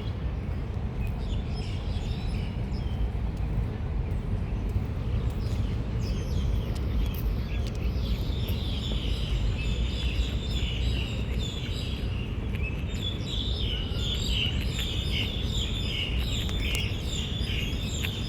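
Small birds chirping and twittering, a dense chatter in the second half, over a steady low rumble.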